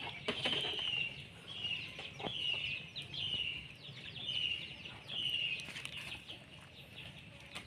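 A bird calling over and over: short, high chirps that fall in pitch, a little more than one a second, with a few faint knocks among them.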